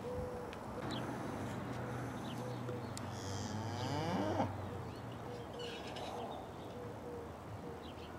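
Cattle mooing: one long, low bellow that starts about a second in and lasts about four seconds.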